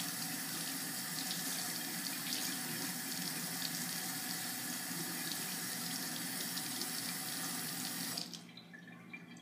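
Kitchen tap running steadily into a sink, shut off suddenly near the end, as a tablespoon is filled with water.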